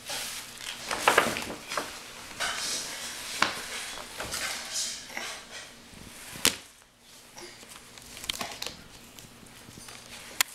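A large paper sheet rustling and scraping on a wooden floor as a toddler scribbles with crayons and handles the sheet, with a few sharp clicks.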